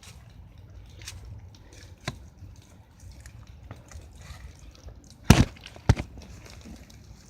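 Digging in wet soil: a few faint clicks, a sharp knock about two seconds in, and two loud knocks about half a second apart near the end.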